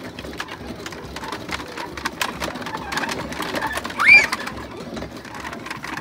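Wooden dog/goat treadmill clattering as a child walks on it, its slats and rollers knocking in a quick irregular run of clicks. About four seconds in, a single short, loud cry rises and falls in pitch over it.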